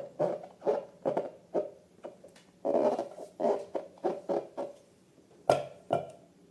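Slime being squeezed and kneaded by hand, making wet squishing sounds at about three squishes a second with one longer squelch midway. Two sharper smacks come near the end.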